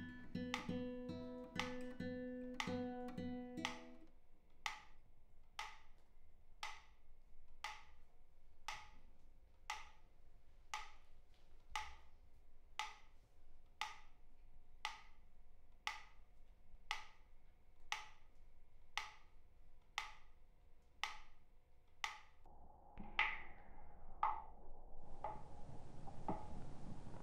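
Nylon-string classical guitar plucked over the even ticking of a pyramid-shaped mechanical metronome. The guitar stops about four seconds in and the metronome keeps ticking at a steady beat. Near the end a steady hiss comes in under the ticks.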